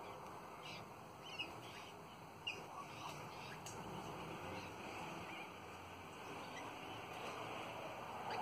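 Twenty-eight parrots (Australian ringneck parrots) feeding and chattering with short, soft, scattered chirps. A couple of sharp clicks stand out early on.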